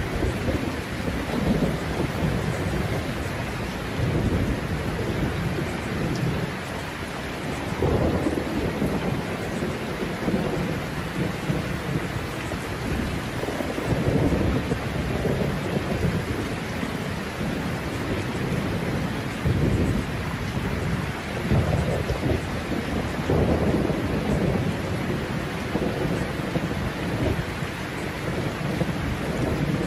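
Rainstorm: steady rain with low thunder rumbles that swell and fade every few seconds.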